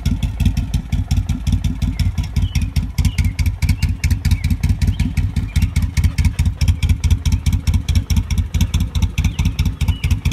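Suzuki Boulevard M109R's big 1783 cc V-twin idling with a steady, even low pulse.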